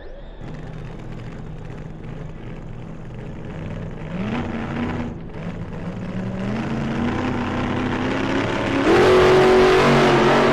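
Losi SCBE electric radio-controlled buggy running, its motor and drivetrain whining and rising in pitch as it speeds up. It grows louder toward the end and is loudest about nine seconds in, with tyre noise underneath.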